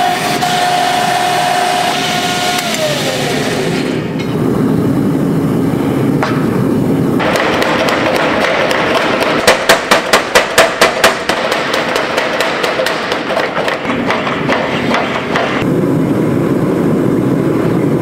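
A hydraulic forging press whines steadily, its pitch falling about three seconds in. From about seven seconds a power hammer pounds the red-hot Damascus hatchet blank in rapid, even blows, about four a second, loudest around ten seconds in.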